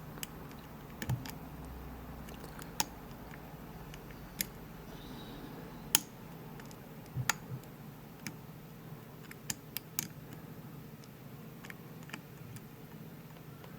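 Sparse, irregular metallic clicks and taps from a hook pick working the spring-loaded pins of a Winkhaus Titan euro cylinder under tension, during single-pin picking. The loudest click comes about six seconds in.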